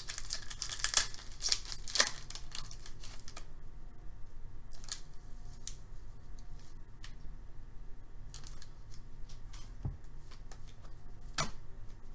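Foil wrapper of a trading-card pack crinkling as it is torn open, for about the first three and a half seconds. After that, scattered light clicks and taps as the cards are handled.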